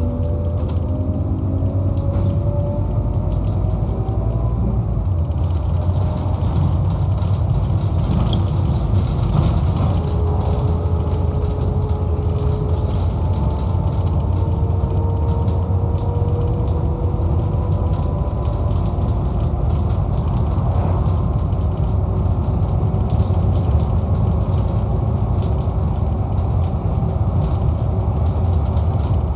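Onboard sound of a Scania K230UB bus under way: the Scania DC09 9-litre engine gives a steady low rumble, and the ZF Ecomat 5-speed automatic gearbox whines in several slow rises in pitch, one after another. Light rattles and creaks come from the interior fittings.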